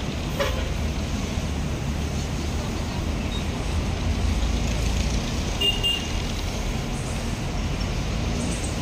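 City bus engine running as the bus pulls slowly past close by: a steady low rumble over street traffic noise, with a brief high squeak about six seconds in.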